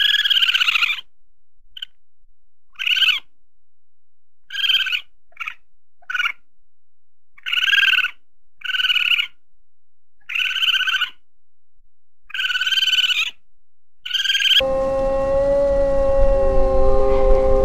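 Raccoon calling in short, pitched squalls, about a dozen of them spaced a second or two apart. About fifteen seconds in, a wolf begins a long, steady howl that falls slightly in pitch, and a second, lower howl joins near the end.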